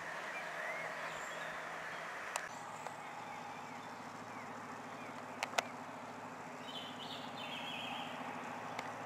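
Quiet lineside ambience: a distant diesel train's engine hums steadily, with small birds chirping over it and two faint clicks about halfway through.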